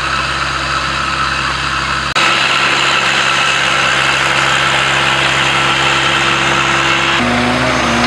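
Off-road 4x4 vehicle engine running steadily. The sound changes abruptly about two seconds in and shifts again near the end.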